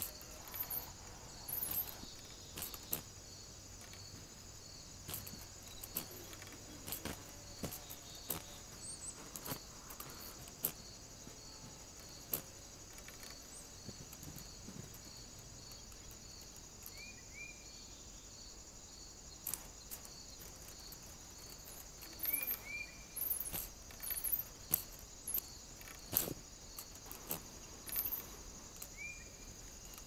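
Woodland ambience sped up threefold: a steady high insect buzz with a faint regular pulse, scattered sharp ticks and knocks, and a few brief high chirps, bunched together from about two-thirds of the way in.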